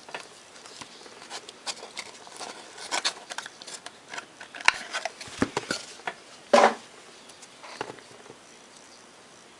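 Hands opening a sealed box of trading cards and its packs: scattered scratches, rustles and clicks of cardboard and wrapper, with one louder sound about six and a half seconds in.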